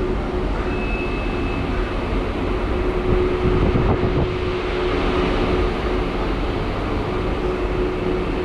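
Steady hum and rumble inside a Medha-built EMU local train coach, with a constant tone from the train's electrical equipment. A brief high tone sounds about a second in.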